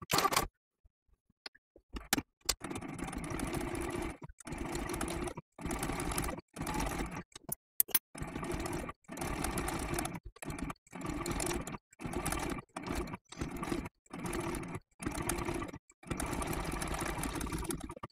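Domestic sewing machine sewing a blanket stitch around a curved appliqué edge in short stop-start runs, stopping every second or so while the fabric is turned to follow the curve. The first couple of seconds are a pause with a few light clicks.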